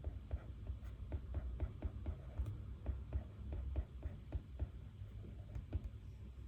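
A run of light, irregular clicks and taps, several a second, over a steady low room hum.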